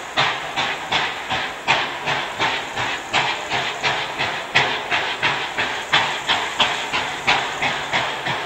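Steam locomotive working a train, its exhaust chuffing in a steady rhythm of about three beats a second, each beat a sharp hiss of steam.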